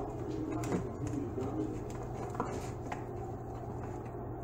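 Knife and fork clicking and scraping in an aluminium foil pan as meatloaf is cut and lifted out, a few light clicks over a steady low hum.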